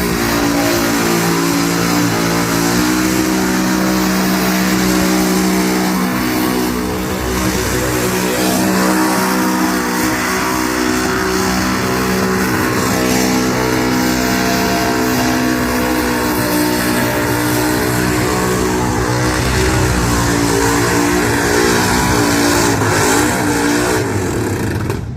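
Burnout car's engine held at high revs through a long burnout, its pitch staying nearly steady with a step up about three seconds in and brief dips, over a heavy hiss of wheelspin and exhaust. The sound cuts off abruptly at the end.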